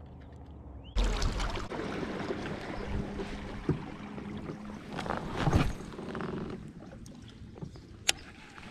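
Water rushing and gurgling around a fishing kayak as it moves, starting suddenly about a second in and easing off after about six seconds. A sharp click near the end.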